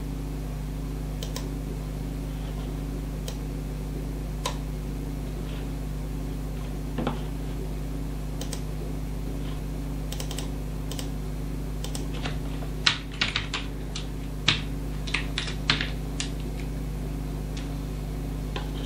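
Typing on a computer keyboard: a few single clicks early on, then a quick run of keystrokes about twelve seconds in, over a steady low hum.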